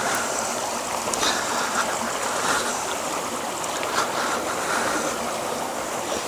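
Shallow rocky woodland stream running, a steady rush of water over stones.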